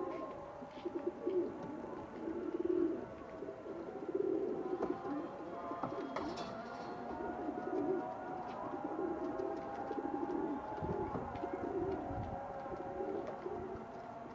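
Domestic pigeons cooing repeatedly, one low rolling coo after another.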